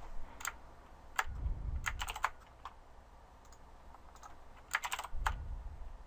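Typing on a computer keyboard in short irregular bursts of keystrokes, with pauses between them and a couple of low dull thumps.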